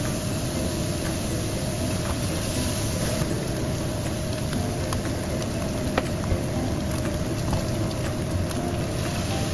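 Ground pork sizzling in a wok over a gas burner, under a steady rushing noise, with a couple of sharp clicks about five and six seconds in.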